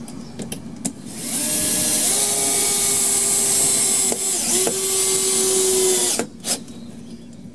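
Bosch cordless drill/driver driving a screw. The motor winds up and then runs steadily for about five seconds, with a couple of brief dips around the middle, and stops.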